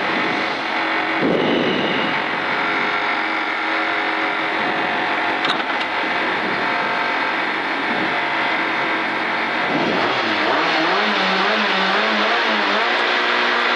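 Alfa Romeo 147 rally car's engine running with the car at a standstill, heard from inside the cabin. About ten seconds in the revs rise and are held, wavering up and down.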